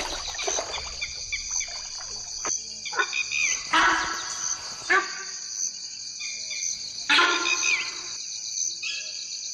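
Steady, shrill chorus of crickets or similar insects chirping at dusk, pulsing evenly throughout. A few louder short sounds stand out over it, the loudest about four and seven seconds in.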